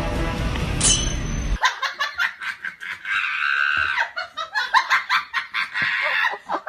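Music that cuts off about one and a half seconds in, followed by a person laughing hard and high-pitched in quick repeated peals.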